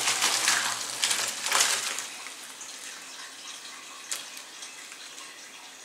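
Hot cooking water poured from a pot through a metal colander into a sink: loud splashing for about two seconds that then eases to a trickle as the leaves drain. A single light knock about four seconds in.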